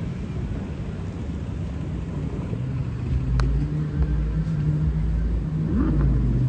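An engine running steadily with a low hum over rumble, growing louder about two and a half seconds in, with a brief rise in pitch near the end. A single sharp click about three and a half seconds in.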